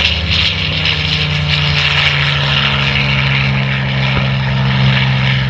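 Engine and propeller of an MXS-RH aerobatic monoplane running at high power: a loud, steady drone that drops slightly in pitch about two and a half seconds in.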